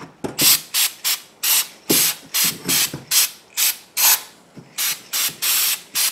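Aerosol can of WD-40 Specialist Long-Term Corrosion Inhibitor sprayed in many quick short hisses, about three a second, as it is worked into a carburetor's ports.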